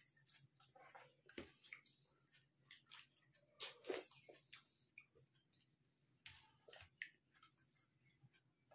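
Faint eating sounds: chewing, and fingers mixing rice with dal and curry on plastic plates, with scattered small clicks and one louder brief noise about three and a half seconds in.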